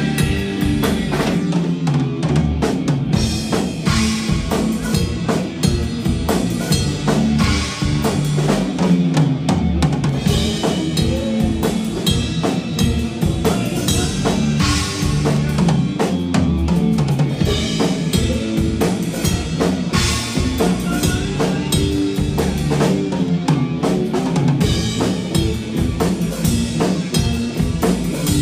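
Live rock band playing: drum kit with kick, snare and cymbals, and electric guitars, in a steady groove with no break.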